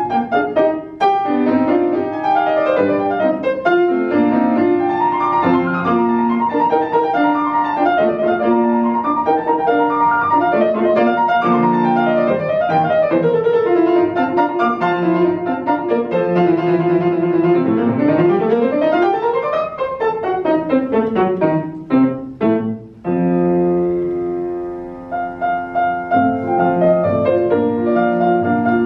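Solo grand piano playing a fast classical passage of quick running notes. About two-thirds of the way in, a rapid scale sweeps up and back down, followed by a few sharp chords and a short held note before the running figures start again.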